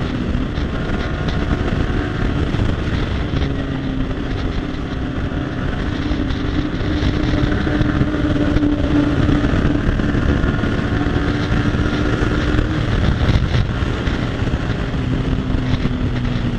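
Yamaha R15 V3's 155 cc single-cylinder engine running hard at highway speed, with wind rushing over the microphone. Its note climbs slowly through the first half and then falls away about thirteen seconds in.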